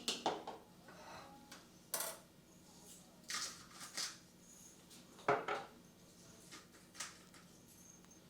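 A fork and bowl clinking and knocking now and then, with about six short, light taps and scrapes spread out and quiet between them.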